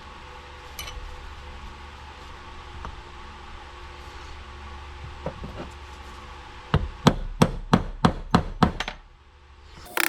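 A hammer striking a brass punch against a wheel-bearing race in a truck hub: a quick run of about ten sharp metal blows, about four to five a second, over a low steady hum.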